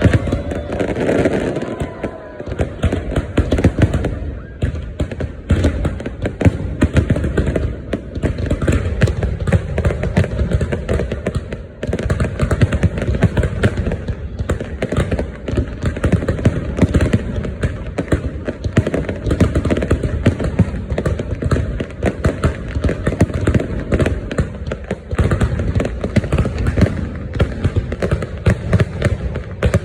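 Fireworks going off in a dense, continuous barrage of rapid cracks and bangs with no pause.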